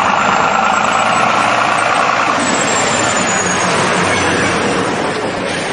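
Diesel engine of a Ford lorry hauling a loaded shipping container, running steadily as the truck drives slowly past, growing a little fainter near the end.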